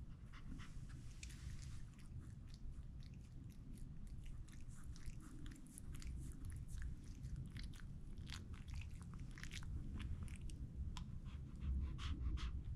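Pomeranian making mouth noises: a long run of irregular small clicks and smacks, with no single loud burst.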